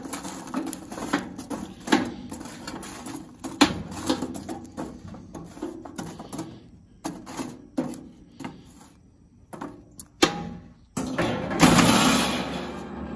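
Hot charcoal briquettes being raked and spread with long metal tongs in the steel bottom of an Old Smokey grill: irregular clinks, scrapes and knocks of metal on coals and grill. A louder, longer clatter near the end as the wire cooking grate is set on.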